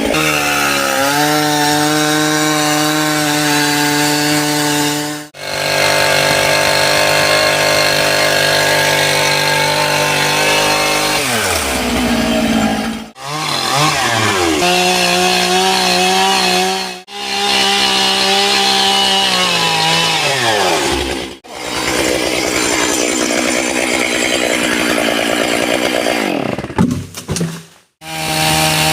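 Stihl MS661 two-stroke chainsaw running at high revs as it cuts into a big tree, its pitch dipping and climbing back several times as the chain bites and frees. The sound breaks off abruptly about five times, spliced segments of cutting.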